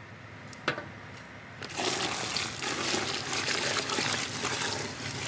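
A small knock, then from about two seconds in a steady pour of coconut milk sweetened with dissolved jaggery, tipped from a steel basin into rice flour.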